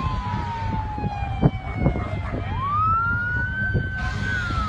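Emergency vehicle siren in a slow wail: its pitch slides down, climbs back up about halfway through, holds, and starts to fall again near the end, over a low engine rumble. A sharp knock about a third of the way in.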